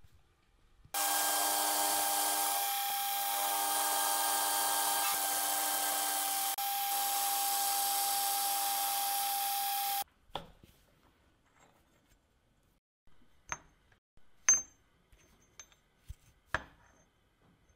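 Milling machine with an end mill cutting along a metal bar held in the vise: a steady machining whine with a constant high tone, starting about a second in and stopping abruptly partway through. After it, a few scattered light metallic clicks and clinks.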